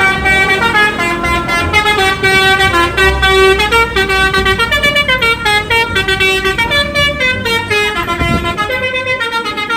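Bus 'telolet' musical horn playing a fast multi-note tune, its pitch stepping up and down from note to note.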